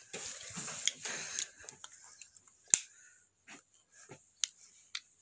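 Rustling for about a second and a half, then a few scattered sharp clicks and taps, the loudest a little under three seconds in.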